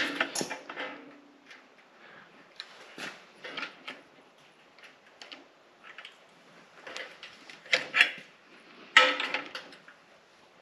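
Metal F&J ceiling molding being bent at its end tab with a hand seamer: scattered clicks, creaks and thin sheet-metal crinkling, with sharper snaps about eight and nine seconds in.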